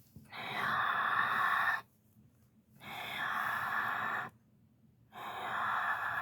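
Emergency Alert System SAME header data bursts: three raspy digital tone bursts, each about a second and a half long, with about a second of silence between them. They mark the start of an emergency alert broadcast.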